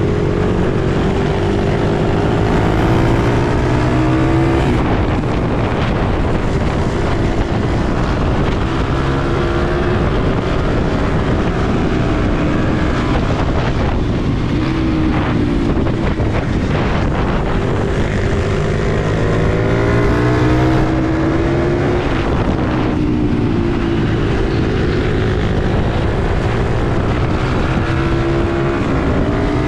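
Pitbike's single-cylinder engine at race pace, heard from on board. Its pitch climbs again and again as it accelerates, then falls back between the climbs.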